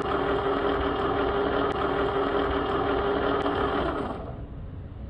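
Small electric motor humming steadily, then cutting off about four seconds in.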